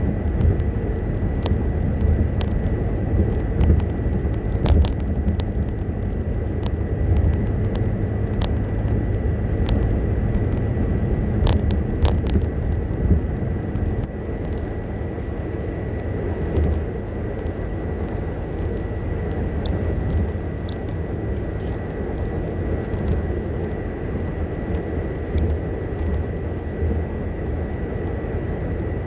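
Car cabin at highway speed: a steady low drone of tyre and road noise with engine hum, broken by scattered sharp clicks and knocks, with a faint steady high whine above it.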